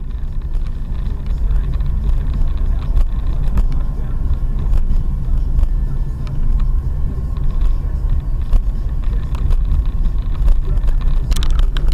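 Steady low rumble of road and engine noise inside a moving car, as picked up by a dashcam. Near the end a burst of sharper clicking and rattling sets in over it.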